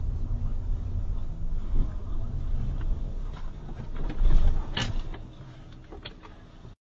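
Low rumble of a car moving slowly, with a sharp knock and clatter about four and a half seconds in, after which the rumble fades and the sound cuts off near the end.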